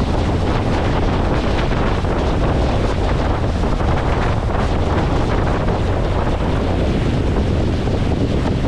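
Steady wind rushing over the microphone on a motorboat under way, with the wash of water underneath.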